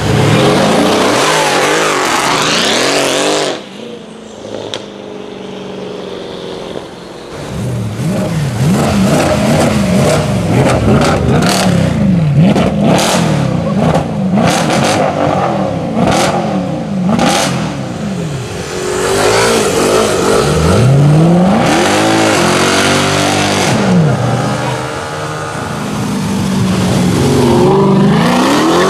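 Mercedes-AMG car engine revving and accelerating hard, its pitch climbing and dropping again and again with each blip and gear change. A run of sharp cracks comes in the middle.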